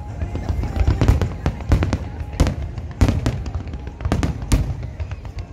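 Fireworks display: a rapid series of aerial shell bangs and crackling bursts, several a second, over a continuous low rumble.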